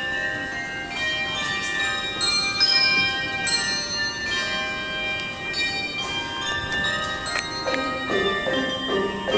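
Handbell choir playing a tune: many handbells rung in turn and left to sound, their tones overlapping, with a louder, brighter chord about two and a half seconds in.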